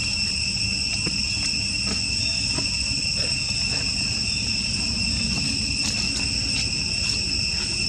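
Steady, high-pitched chorus of insects buzzing without a break, over a low rumbling background with a few faint clicks.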